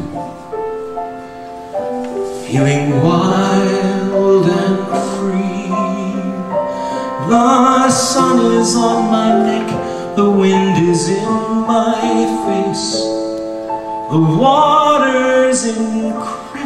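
A man sings a show-tune ballad into a handheld microphone with piano accompaniment. The first couple of seconds are held piano chords, then the voice comes in with long, wavering phrases.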